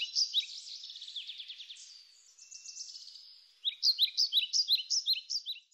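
A bird singing in runs of sharp, high chirps, about four a second, with a softer, quicker trill in the middle; the song stops abruptly near the end.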